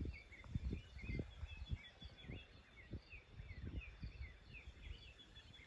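Birds calling: a dense run of short, quick chirps that rise and fall, several a second, over a thin steady high tone. Low rumbles sound underneath, strongest in the first second or so, then fainter.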